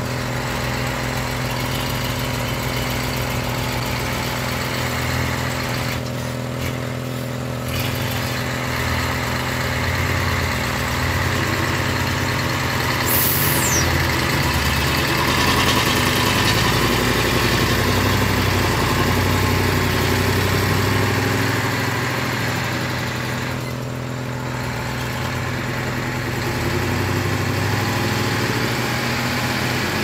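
Diesel engine of a heavily loaded logging truck running steadily at low speed on a rough dirt road, getting somewhat louder through the middle and easing off a little near the end.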